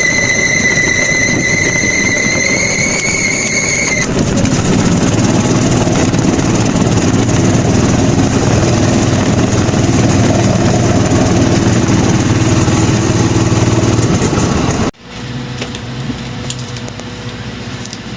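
Motor vehicle running, heard from on board. A steady high whine lasts the first few seconds, then loud engine and road noise follows and drops off suddenly about 15 seconds in.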